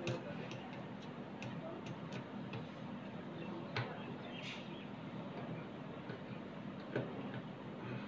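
Small scattered clicks and ticks of a screwdriver, screw and nut working against a PVC fan blade and plastic hub as the blade is screwed on, with a sharper click just under four seconds in and another about seven seconds in. A low steady hum runs underneath.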